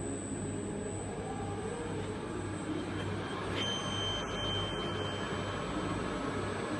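Air Liquide Rotamatic welding rotator's electric drive running steadily with a low hum. About halfway through there is a click, and a faint high whine sets in after it.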